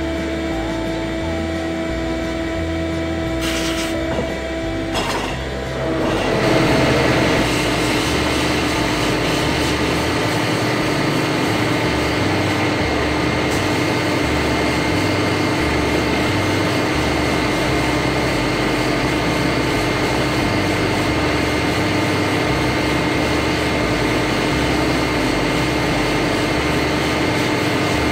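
Sandblast cabinet's blast gun firing compressed air and abrasive at a steel bracket: a loud, steady hiss that starts suddenly about six seconds in, after a steady machine hum.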